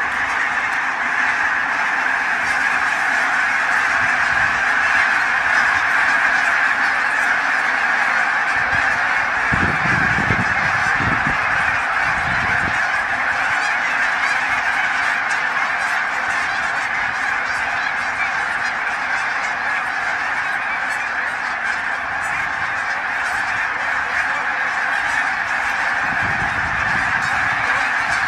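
A huge flock of snow geese calling in flight: a dense, unbroken din of honking from thousands of birds at once.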